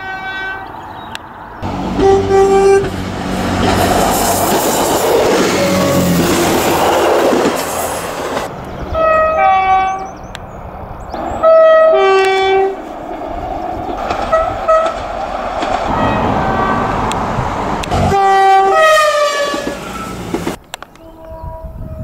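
Train horn sounding in a series of blasts, some two-note, over the rumble of a train running along the track. Near the end the blasts drop in pitch as the train passes.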